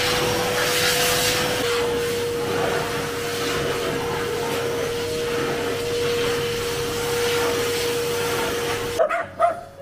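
Pet blow dryer running steadily: air rushing out of its hose with a constant motor whine as a wet dog is dried. It cuts off suddenly about nine seconds in.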